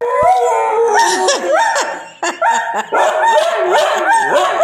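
Siberian husky vocalizing: a rapid run of short howling calls that slide up and down in pitch, one after another, with a brief gap about two seconds in.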